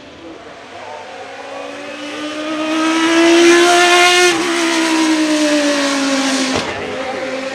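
Judd GV10 3.5-litre naturally aspirated V10 of a Lola T92/10 Group C car running hard as it passes close by. Its pitch climbs as it approaches and is loudest about four seconds in, then drops sharply as the car goes past and keeps falling as it pulls away.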